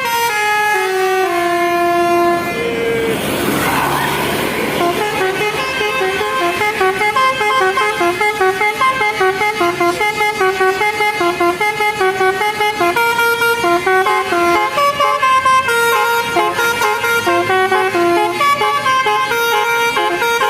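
Telolet basuri multi-tone bus horn playing a melody of short stepped notes, several a second, falling in pitch at first and then running through quick repeating phrases. A burst of noise sounds about three seconds in.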